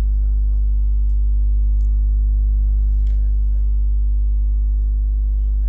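Steady electrical mains hum, a low buzz with a stack of overtones, with a faint short hiss about three seconds in.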